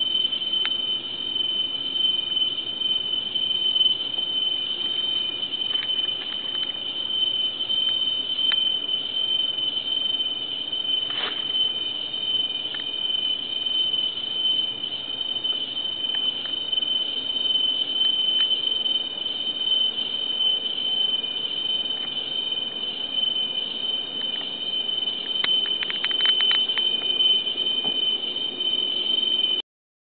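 Steady, shrill high-pitched insect chorus, typical of tropical-forest cicadas or crickets, holding one pitch without a break. A few faint clicks come about eleven seconds in and again near the end.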